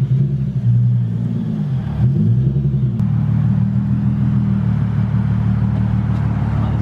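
Nissan 370Z's 3.7-litre V6 running, its note wavering for the first three seconds, then idling steadily.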